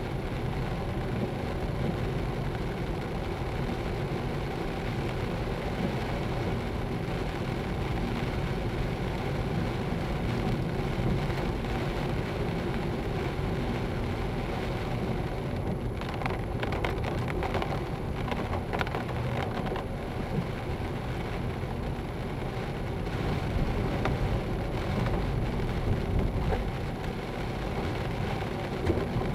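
Steady car cabin noise while driving on a wet road in rain: engine and tyre hiss with rain on the windscreen, picked up by the dashcam inside the car. A short spell of crackly spatter comes a little past halfway.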